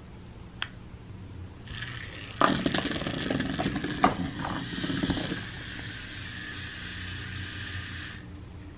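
HexBug Mouse robotic cat toy's small motor whirring as it runs, rattling and scraping while a cat paws at it, then cutting off abruptly about a second before the end.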